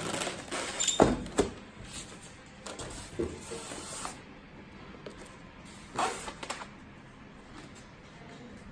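Packaging of a boxed collectible figure being handled as its bottom section is pulled out. Two sharp knocks come about a second in, a hissing scrape around three to four seconds, and another brief scrape about six seconds in.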